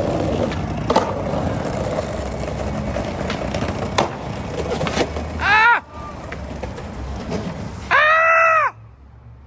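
Skateboard wheels rolling on pavement with a steady rumble, with sharp clacks about a second in and again around four and five seconds in. A voice calls out near the middle, then a longer shout comes near the end, as the rolling stops.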